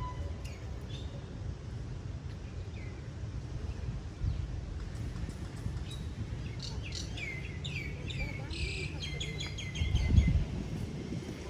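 Birds chirping, a quick run of short falling notes in the second half, over a steady low outdoor rumble. A brief louder low rumble comes about ten seconds in.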